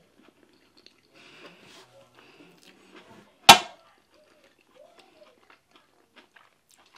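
Quiet chewing and mouth clicks, then a single loud, sharp knock with a brief ring about halfway through, as a glass of water is picked up off the table.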